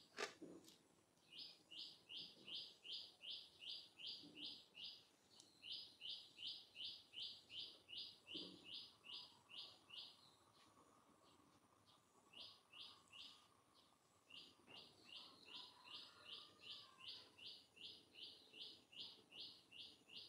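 Faint, rapid runs of short high chirps, about three a second, repeated in several long series with short gaps between them: a small bird calling.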